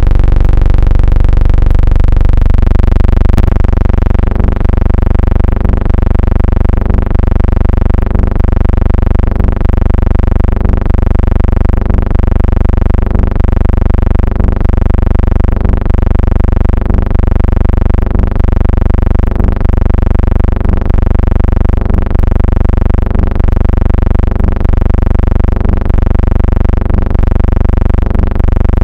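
Loud, sustained droning tones with many overtones, like held chords, shifting once about two and a half seconds in, with faint clicks recurring throughout.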